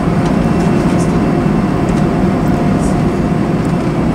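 Steady low rumble of jet engines and airflow inside an airliner cabin as it taxis onto the runway, with a faint steady whine.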